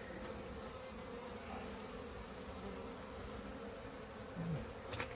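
A honeybee colony buzzing steadily, a low even hum of many bees. There is one brief sharp click near the end.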